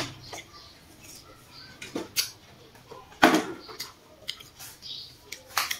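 Close-up sounds of someone chewing juicy watermelon: irregular wet smacks and clicks of the mouth, with a louder burst a little over three seconds in.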